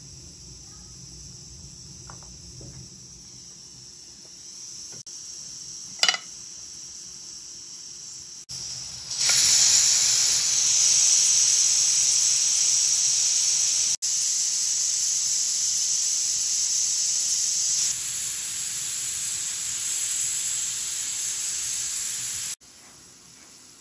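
Clamp-lid stovetop pressure cooker venting steam through its weighted valve: a steady high hiss that grows much louder about nine seconds in and cuts off suddenly near the end. There is a single sharp click about six seconds in.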